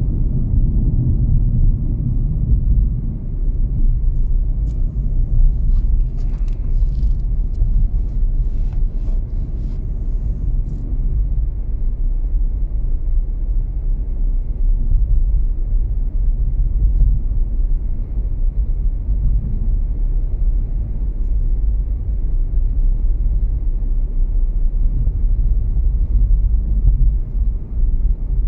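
Car driving along the road, its tyre and engine rumble heard from inside the cabin.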